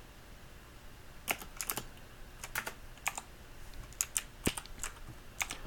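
Computer keyboard being typed on: irregular keystrokes, a few keys at a time with short pauses, starting about a second in.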